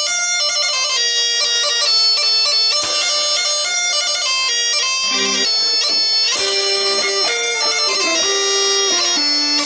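Bagpipe playing a quick melody of many short notes stepping up and down.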